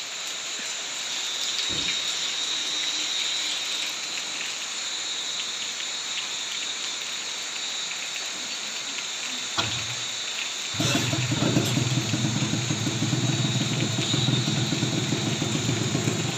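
Steady rain hiss. A little before ten seconds in, a Kawasaki Ninja RR's two-stroke single-cylinder engine is started; it catches at about eleven seconds and then idles steadily.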